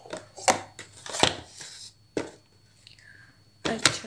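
Plastic makeup compacts and cases being handled and set down on a hard vanity top: several sharp clacks and knocks at uneven intervals, with a quick double knock near the end.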